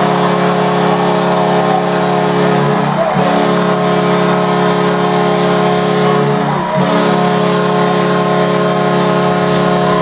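Hockey arena goal horn sounding one long, steady blast of several notes at once, with brief dips about three and seven seconds in: the signal of a home-team goal.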